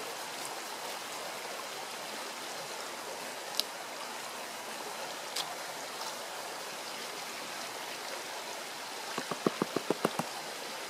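Shallow stream running steadily, with two sharp clicks and, about nine seconds in, a quick run of about eight knocks in a second as the black plastic gold pan is tapped and handled while panning.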